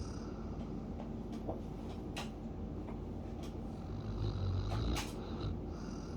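Siberian husky snoring in its sleep, with one louder snoring breath about four seconds in. A couple of short clicks are heard as well.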